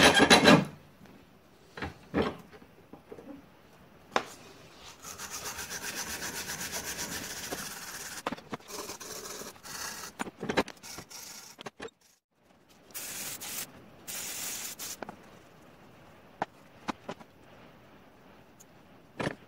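Brass wire brush scrubbed back and forth over a cast aluminium clamp held in a vise, scouring off grease and grime before welding. It comes in runs of scratchy strokes, with two short, harsh bursts near the end, and a loud knock right at the start.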